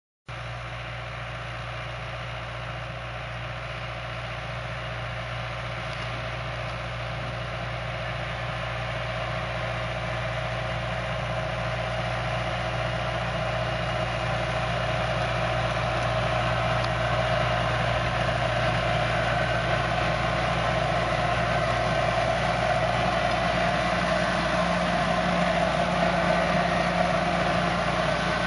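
Fiat 65-46 DT tractor's diesel engine running steadily while it pulls a pneumatic seed drill, growing gradually louder throughout as it draws nearer.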